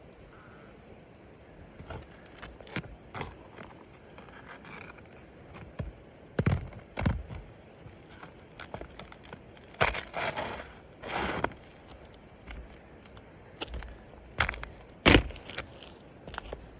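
Hand-tool work on asphalt roof shingles: scattered knocks and clicks, with two longer scrapes about ten and eleven seconds in and a sharp knock near the end.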